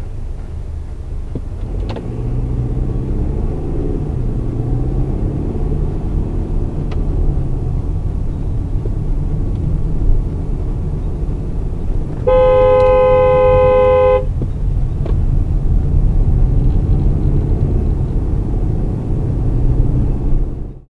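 Steady engine and road rumble from a moving car, with a car horn sounding one steady blast of about two seconds, about twelve seconds in.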